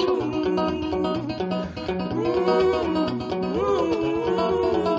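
Background music: plucked acoustic guitar, with a melody line gliding between notes over a steady bass.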